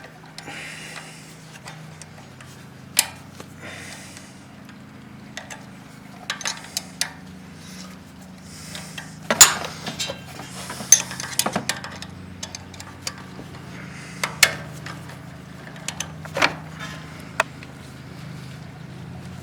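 Metal hand tools clinking and knocking against the ATV's parts, scattered irregular clicks with a louder clank about nine and a half seconds in, over a steady low hum.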